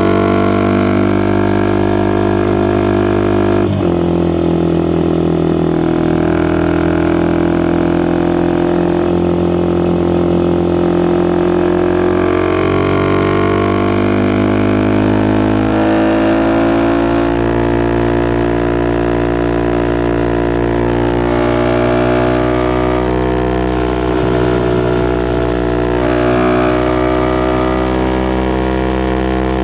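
Suzuki Gixxer SF 250's single-cylinder engine through a Yoshimura R11 exhaust while riding, a steady droning exhaust note. The note changes abruptly about four seconds in, then rises and falls gently with the throttle.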